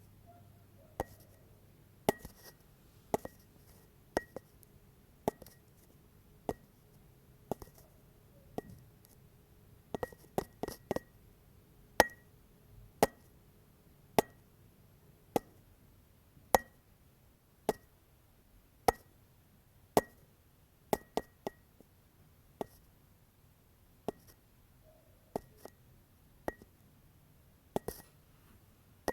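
Sharp clinks about once a second, many with a brief high ping, with a few quicker clusters of three or four; quiet in between.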